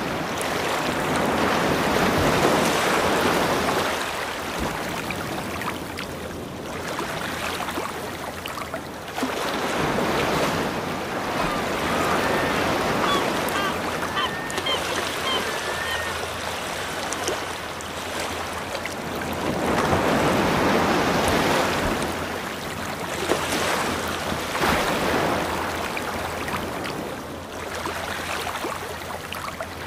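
Ocean waves washing in, a steady surf noise that swells and fades every several seconds, with a few faint short high notes near the middle.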